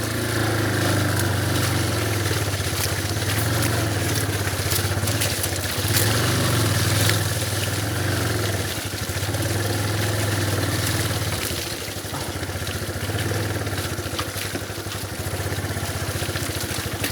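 Motorcycle engine running steadily as the bike is ridden, its level rising and falling slightly with the throttle; it eases off a little about twelve seconds in.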